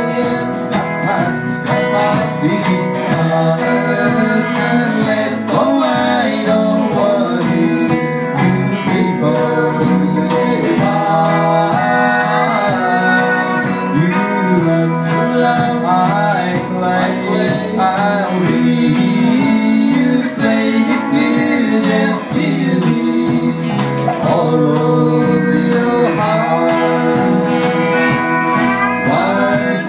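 Live country band playing a song: electric and acoustic guitars, bass and drums, with sung vocals over them.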